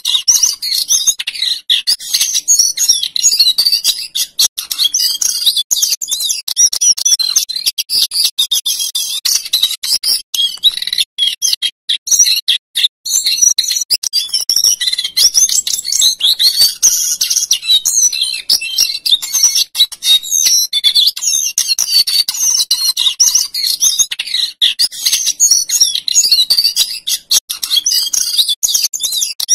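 A male jongkangan coklat (cingcoang cokelat) singing in a cage: a long, rapid, high-pitched run of varied rolling and fluting notes. There is a short pause about halfway through.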